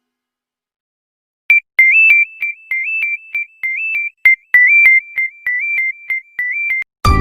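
Evercoss Android phone ringtone: a simple, high-pitched synthesized beeping melody of short notes stepping up and down in a repeating pattern, starting about a second and a half in. Just before the end it stops and a fuller tune begins.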